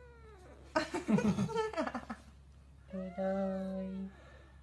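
A kitten yowling and meowing: a loud, rough yowl about a second in, then a long, steadier meow near the end.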